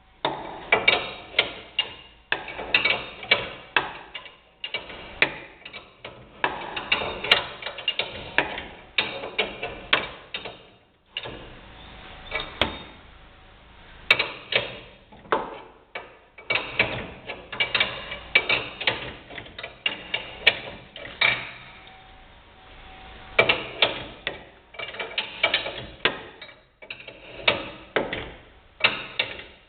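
Hand ratchet wrench clicking in runs of quick strokes, with short pauses between runs, while a front coil spring is worked into trunnion suspension.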